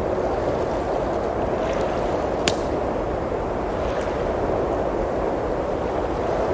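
Steady rushing blizzard wind with a few sharp pops and crackles from a wood fire, the strongest pop about two and a half seconds in and a softer one about a second later.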